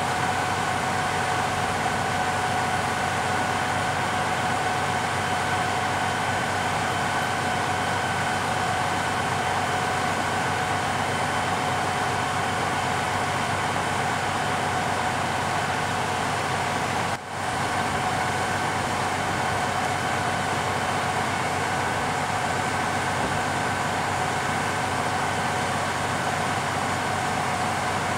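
Steady drone of fire-rescue machinery running at a fire scene, with a constant whine over a low rumble. It drops out for a moment about two-thirds of the way through.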